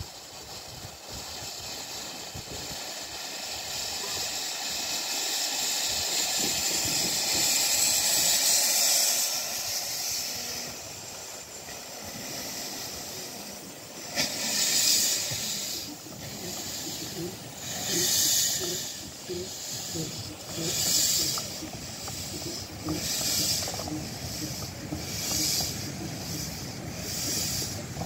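15-inch gauge steam locomotive Northern Rock hissing steam, the hiss building steadily over the first several seconds. It then pulls away with sharp puffs of exhaust steam, a few seconds apart at first and coming closer together as it gathers speed.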